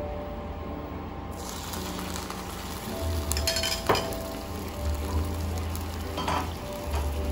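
Water sizzling in a hot nonstick frying pan around two egg pancakes, starting suddenly about a second in, with a few sharp clinks. Background music plays throughout.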